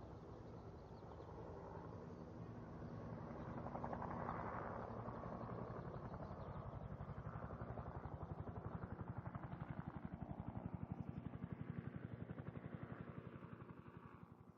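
Helicopter running, its rotor beating in a fast, even chop over a steady engine hum. It grows louder about four seconds in and fades out near the end.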